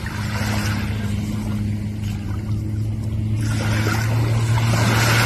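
Personal watercraft engine running at a steady hum, with a rushing hiss of water and wind that swells about three and a half seconds in.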